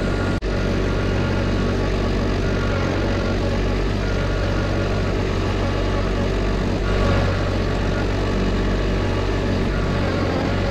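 Compact tractor engine running steadily as the tractor drives with its front loader, with a brief dropout about half a second in.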